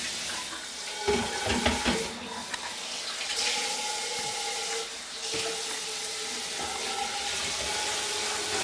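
Kitchen sink tap running, with the microwave turntable plate being washed under it; a few low knocks of the plate against the sink between one and two seconds in.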